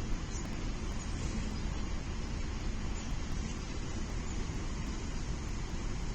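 Steady rumble and hiss, like wind buffeting an outdoor nest camera's microphone, with no distinct calls or knocks standing out.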